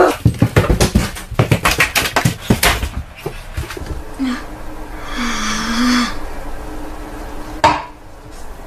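Quick running footsteps on a hardwood floor, a rapid patter of sharp steps. About five seconds in comes a roughly one-second raspy, buzzing noise, with a single sharp knock near the end.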